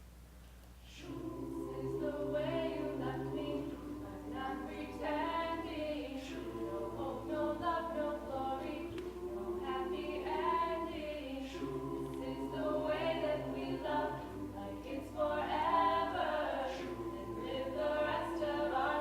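An a cappella vocal group singing in harmony, beginning about a second in after a brief near-quiet pause, with a low bass voice under the upper parts.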